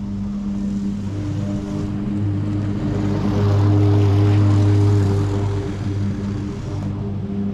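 Lawn mower engine running while mowing grass, growing louder for a couple of seconds in the middle, under background music with a steady bass line.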